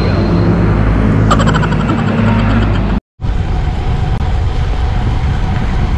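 A motor vehicle's engine hum on the street. After a cut about halfway through, wind and road noise from riding a road bicycle at speed.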